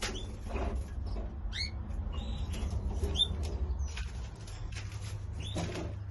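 Small cage birds giving short, high chirps, several scattered calls, with brief rustles of movement and a steady low hum underneath.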